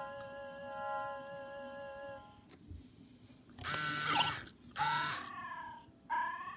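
Sega i-Dog robot toy's small speaker: a held chord of electronic tones that stops about two seconds in, a faint click as a hand touches its head, then short synthesized animal-like cries that rise and fall in pitch, its sick-mood response.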